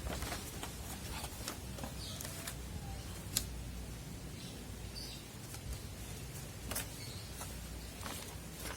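Scattered light clicks and taps from hands handling computer-part packaging, the sharpest about three and a half seconds in, with a few faint bird chirps behind.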